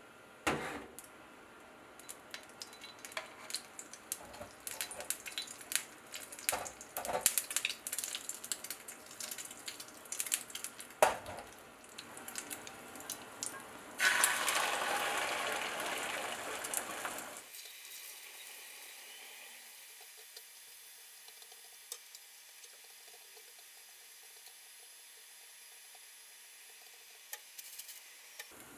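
Quick, irregular clicking taps, like eggs being beaten in a metal cup. About halfway through, beaten egg poured into the hot oiled pan of a hot sandwich maker sizzles loudly for a few seconds, then settles to a faint, steady sizzle as it cooks.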